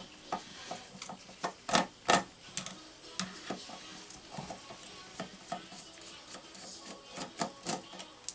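Irregular metal clicks and scrapes of the threadlocked retaining screw inside a Makita DDF456 drill chuck being worked loose and unscrewed, with two sharper clicks about two seconds in and another cluster near the end. The screw turns stiffly because it was Loctited.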